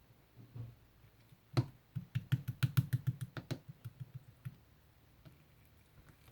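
A soft, jelly-like tangerine pudding being pressed and squeezed by hand, giving a quick run of sticky clicks and pops for about three seconds, starting with one louder pop.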